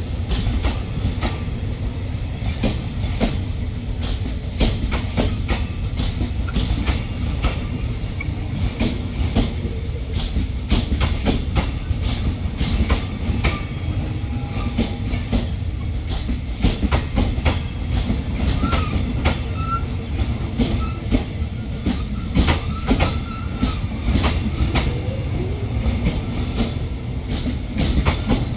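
Stainless-steel passenger coaches of a train rolling past close by: a steady low rumble with the clickety-clack of wheels over the rail joints.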